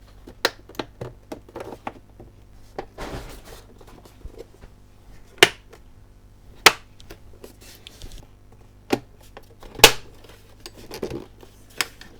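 Plastic casing pieces of a Lavazza coffee machine being handled and snapped back together: a string of sharp clicks and snaps with some scraping between them. The loudest snap comes about ten seconds in.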